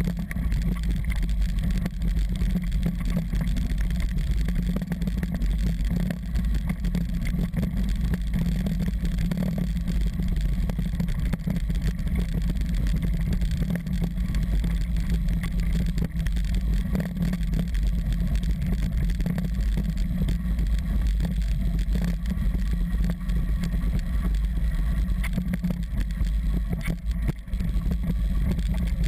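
Mountain bike rolling over a loose gravel track: a steady low rumble of tyres on stones and wind on an action camera's microphone, with frequent small rattles and knocks from bumps.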